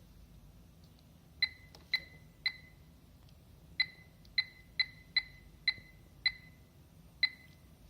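A digital kids' alarm clock beeping briefly at each press of its adjust button while the date is being set: about ten short, high single beeps, each starting with a click, in irregular groups.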